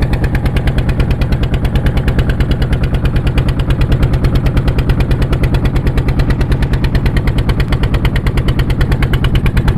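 Fishing boat's engine running steadily under way, a loud, rapid, even beat of about ten pulses a second.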